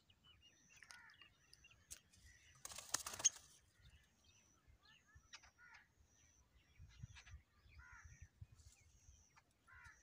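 Bird calls: faint short, high chirps repeating throughout, and one loud, harsh call lasting just under a second about three seconds in.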